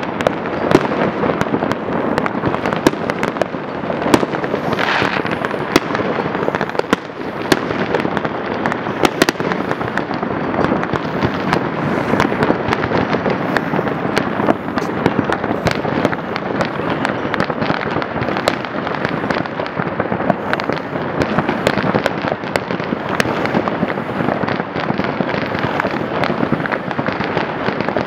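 Many fireworks going off at once: a steady din of crackling with frequent sharp bangs standing out.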